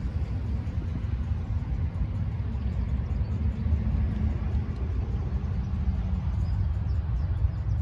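GE B23-7 diesel-electric locomotive's 12-cylinder FDL engine running with a steady low rumble as the locomotive creeps toward the listener at switching speed.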